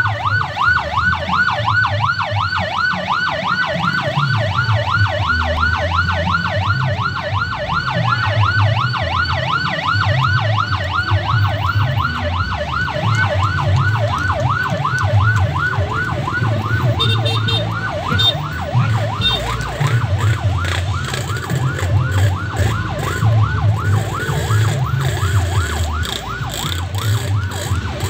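Electronic siren in a fast yelp, rising and falling about three times a second without a break, over a low rumble.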